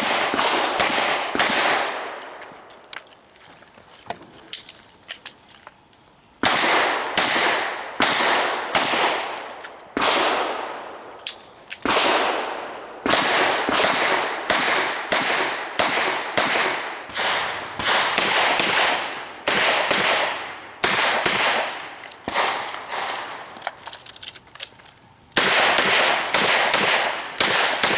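Revolver shots fired in fast strings at a competition stage, with two breaks of a few seconds, from about 2 to 6.5 s in and again shortly before the end, where the shooter reloads.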